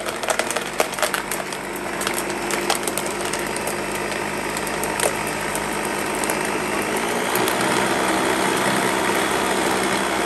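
Countertop blender motor running, blending spinach and fruit into a smoothie. For the first couple of seconds, chunks clatter against the blades and jar. It then settles into a steady whir as the mix turns liquid.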